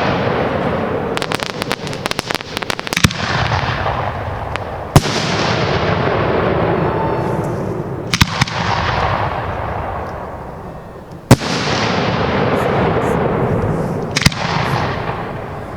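Aerial fireworks bursting. A sharp loud report comes every few seconds, each followed by a long fading hiss and crackle, with a quick run of crackling pops a second or two in.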